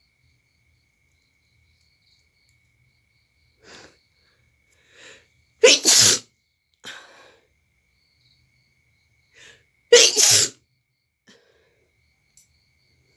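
A woman sneezes twice, about four seconds apart. Each sneeze comes in two quick parts and follows short faint breaths.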